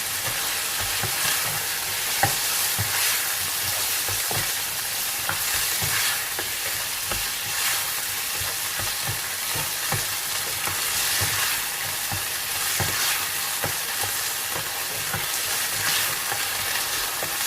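Cubed chicken frying in butter with garlic in a pan, sizzling steadily, with a utensil stirring it and clicking against the pan now and then.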